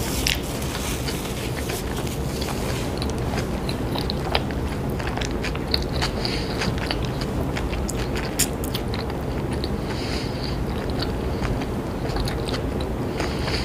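Close-miked chewing of a mouthful of sub sandwich: many small wet mouth clicks and smacks, scattered throughout, over a steady low background hum.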